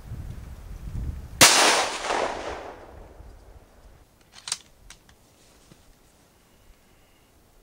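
.204 Ruger bolt-action rifle firing a single shot, a sharp crack about a second and a half in that rings away over more than a second; the cartridge is a handload at the top of a maximum-safe-charge test. A low rumble comes before the shot, and a few faint sharp clicks follow about three seconds after it.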